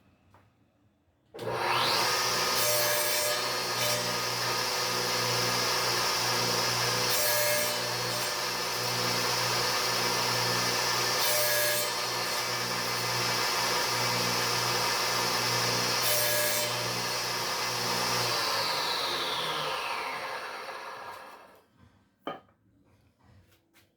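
Electric power saw starting abruptly, running at full speed and cutting wood, with brief sharper bursts about every four seconds. It is switched off near the end and the blade winds down with falling pitch over about three seconds, followed by a single knock.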